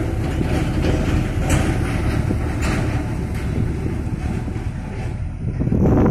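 Heavy diesel dump truck's engine running as it drives away, a steady low rumble that swells louder near the end.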